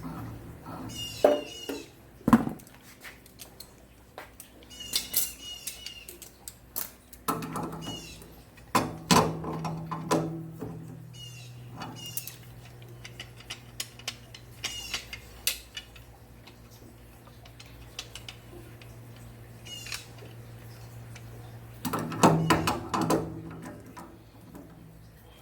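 Hand tools working on a water heater fitting: scattered metal clinks and knocks in several clusters, with short high chirps or squeaks between them and a low hum through the middle.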